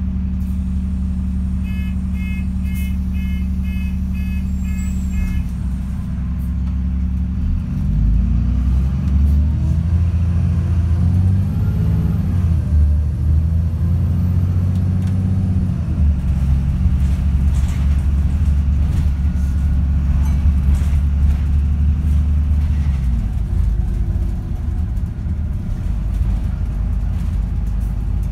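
Optare Olympus double-decker bus heard from inside the passenger saloon: its diesel engine idles while a run of short high beeps sounds, then about eight seconds in the bus pulls away. The engine note climbs and drops several times as the automatic gearbox shifts, holds steady, and eases to a lower note near the end.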